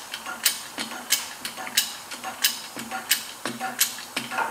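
Porta power hydraulic body jack being pumped: a regular metallic click or clack with each stroke, about every two-thirds of a second, with fainter clicks in between.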